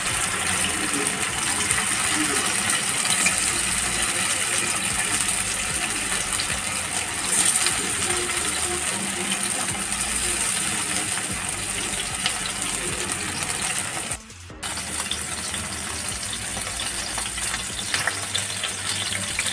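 Marinated prawns sizzling steadily in hot oil in a frying pan as they are shallow-fried, more added one by one. The sizzle drops out for a moment about 14 seconds in, then resumes.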